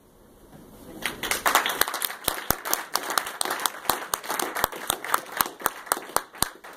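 A small audience applauding. The clapping starts about a second in, builds quickly, then thins out to a few separate claps near the end.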